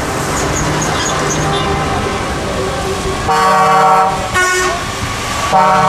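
Lorries in a convoy driving past with their diesel engines running, then a truck horn sounding: a long blast about three seconds in, a short toot, and another blast near the end.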